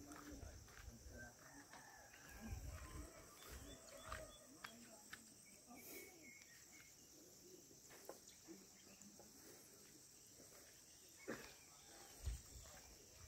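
Faint countryside ambience: a steady high-pitched insect drone with scattered faint bird-like chirps, and a few soft low thumps near the start and near the end.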